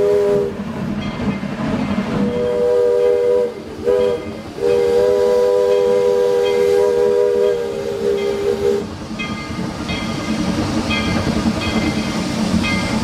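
Steam locomotive's chime whistle blowing a chord in four blasts, long, long, short, long, the pattern of a grade-crossing signal. After the last long blast, about nine seconds in, steam hissing takes over as the locomotive moves.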